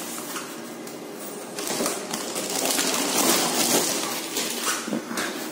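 Crinkling and rustling of the film pack's foil light-shield sheet as it is pulled out of the printer tray and handled. It starts about one and a half seconds in, is loudest in the middle and dies away near the end.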